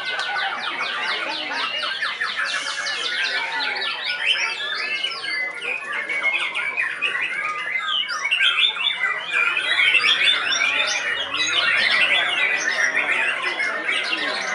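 Caged songbirds singing over one another in dense, overlapping chirps, trills and whistles, with a fast run of repeated notes in the first few seconds; among them a seven-month-old white-rumped shama in rapid-fire contest song.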